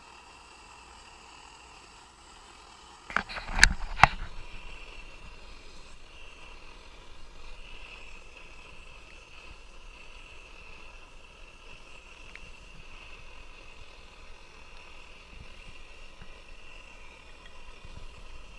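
Several sharp metal clanks of a cookpot lid being handled about three to four seconds in, then the Optimus Hunter camping stove's burner running steadily under a pot of boiling water.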